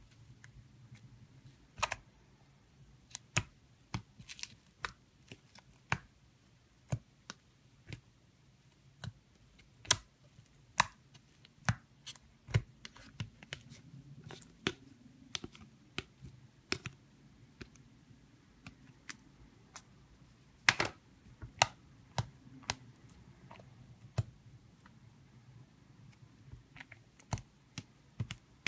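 Fluffy slime being stretched, folded and pressed by fingers, giving irregular sharp clicks and pops, about one or two a second.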